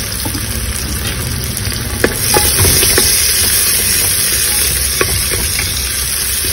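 Sliced onions and seeds sizzling in hot oil in a metal pot. The sizzle swells about two seconds in as a spatula starts stirring, with a few sharp scrapes and taps of the spatula against the pot.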